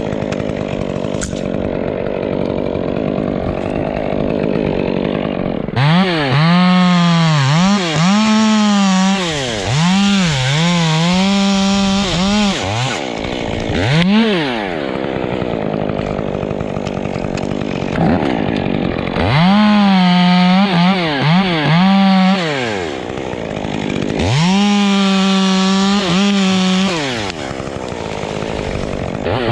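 Two-stroke chainsaw running at low speed at first, then revved to full throttle in several long runs, its pitch repeatedly dipping and recovering between and within them.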